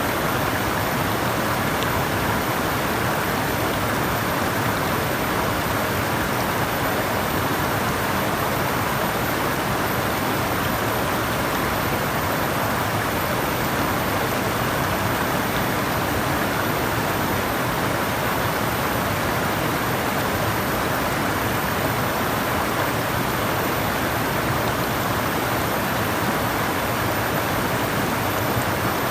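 Flowing water running steadily, an even rushing sound with no breaks or changes.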